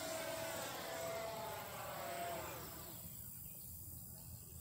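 Distant 80mm electric ducted-fan RC F-86 Sabre jet flying overhead: a steady fan whine that drops in pitch and fades about two and a half seconds in, leaving a faint hiss.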